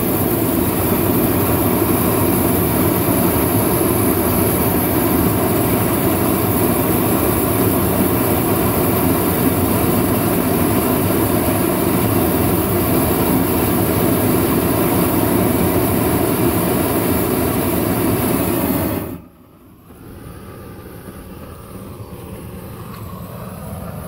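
Propane torch burner roaring steadily at full flame, then shut off suddenly about three-quarters of the way through, leaving a much quieter background.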